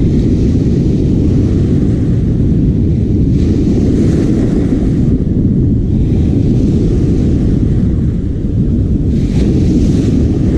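Steady low rumble of a boat under way: the engine running, with wind buffeting the microphone.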